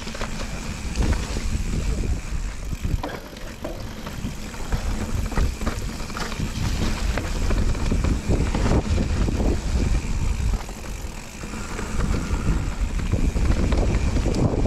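Mountain bike riding down a dirt trail: tyres rolling over earth and leaves, with the bike rattling and knocking over bumps. Wind rumbles on the camera microphone, growing louder toward the end.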